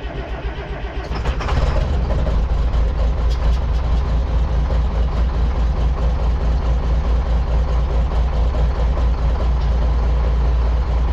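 International DT466 inline-six diesel turning over on the starter, catching about a second and a half in and then running steadily. It runs noisy because the turbo outlet pipe is not yet fitted.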